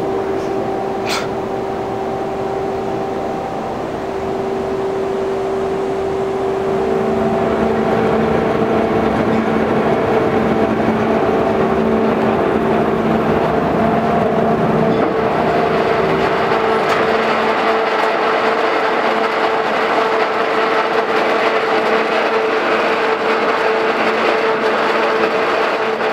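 Factory machinery running: a loud, steady mechanical drone with several steady humming tones. A short click sounds about a second in, and the drone grows louder and changes pitch about seven seconds in.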